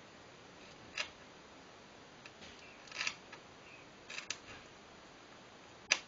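A strip of velcro being handled: a few short scratchy rustles about one, three and four seconds in, with the sharpest one near the end.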